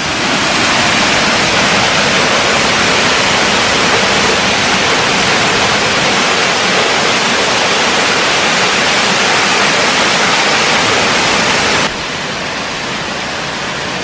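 Steady rushing noise of a tall waterfall and its cascading stream, dropping a little in level about twelve seconds in.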